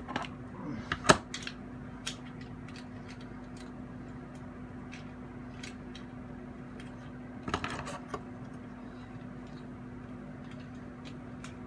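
Sharp plastic clicks and knocks of a Transformers Abominus figure's legs being handled and snapped on, the loudest about a second in and a small cluster at about seven and a half seconds, over a steady low hum.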